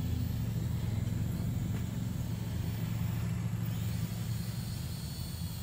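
A steady low rumble without speech.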